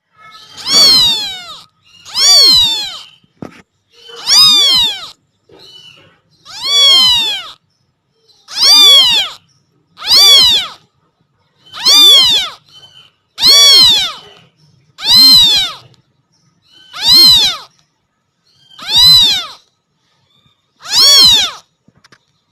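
A kitten meowing loudly and insistently, about a dozen separate calls, each rising then falling in pitch, one every second and a half to two seconds: a kitten crying for its mother cat.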